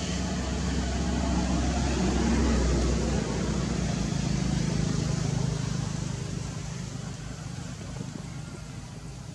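Low steady hum of a motor vehicle engine running, loudest for the first three seconds and then fading away.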